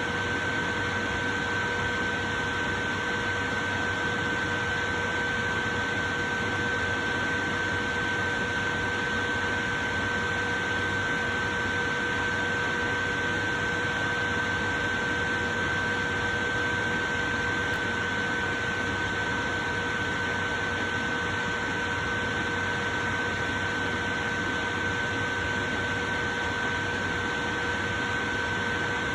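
Portable electric fan running steadily: an even rush of air with a faint, steady whine held on one pitch.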